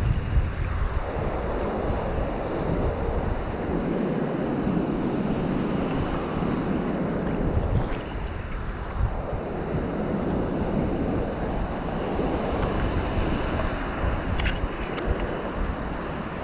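Wind buffeting the microphone over the wash and slap of choppy sea water against a kayak's hull as it is paddled, with a few sharp clicks near the end.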